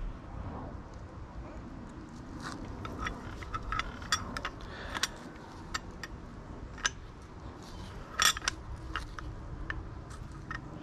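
Irregular small metallic clicks and clinks of hand tools and metal parts being handled while an air spring assembly is worked into place. The loudest click comes a little after eight seconds in.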